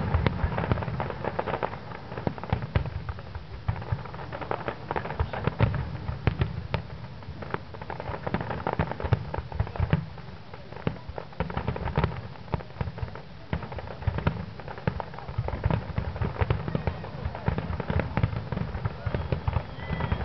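Fireworks finale: a dense barrage of aerial shells bursting, many sharp bangs and crackles overlapping in quick succession without a pause.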